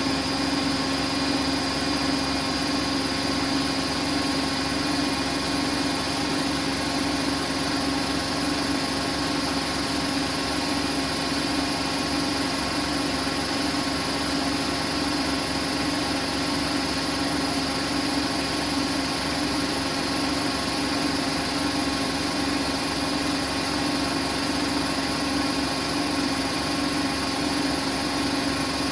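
Siemens Siwamat iQ 716 washing machine running with a steady motor hum and a slight pulsing in the drum's drone, unchanged throughout.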